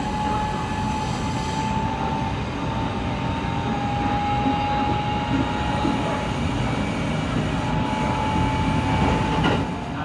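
Interior running sound of a Kintetsu 23000 series "Ise-Shima Liner" motor car with Mitsubishi GTO VVVF traction equipment, running at speed. Wheels rumble on the rails under a steady whine of nearly constant pitch, with a short sharp noise about nine and a half seconds in, after which the sound drops a little.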